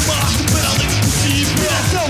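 Live rock band playing loud, aggressive music, with a steady driving drum beat under gliding pitched lines of guitar or voice.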